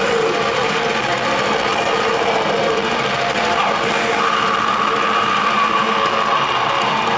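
Black metal band playing live: loud distorted electric guitars and drums in a dense, unbroken wall of sound, with a high held note coming in about halfway through.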